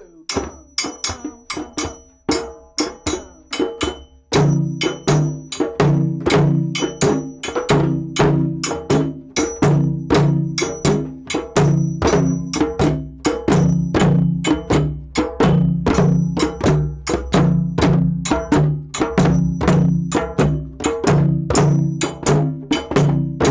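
Dunun drums struck with sticks, with a metal bell struck in time, playing a steady, quick West African rhythm, and djembe hand drums joining in. About four seconds in, deep pitched drum strokes come in and the playing gets louder.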